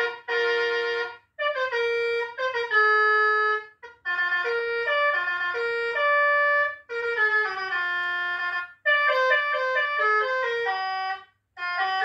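Electronic Basuri telolet bus horn playing its tunes: quick runs of stepped, brassy horn notes, in short melodic phrases broken by brief pauses, about five times.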